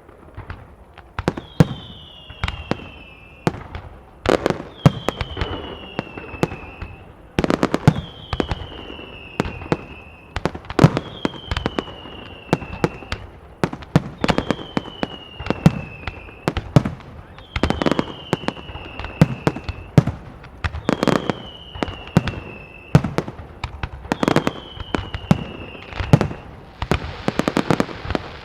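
Fireworks display: sharp bangs of shells bursting all the way through, with a high falling whistle that comes back about every three seconds. Near the end a denser hiss rises under the bangs.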